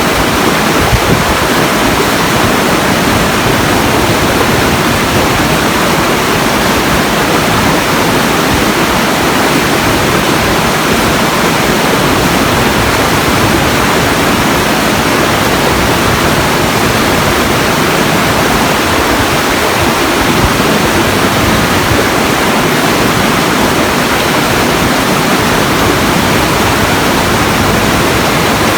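Steady rushing water, an even unbroken roar with no breaks or single events.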